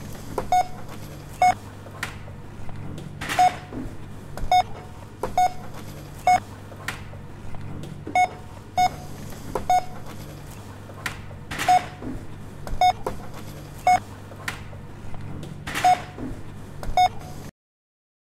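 Shop checkout bar code scanner beeping as items are scanned: short single beeps on one pitch, about one a second at uneven gaps, with a few sharp clicks, over the steady low hum of the shop. The sound cuts off suddenly near the end.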